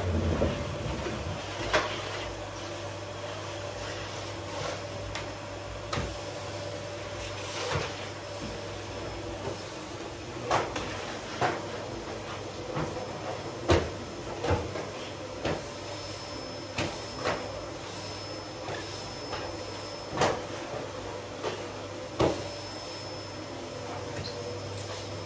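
Irregular sharp knocks and clacks, like cupboard doors and hard objects being bumped during housework, over a steady low hum.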